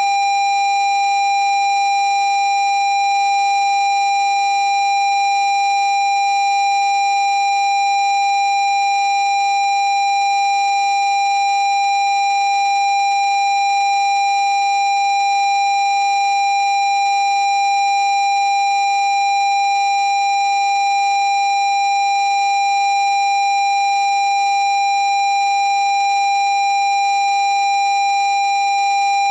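Low-pitched parking-sensor warning tone sounding as one steady, unbroken note with no gaps between beeps. This is the continuous tone that signals an obstacle at the nearest distance.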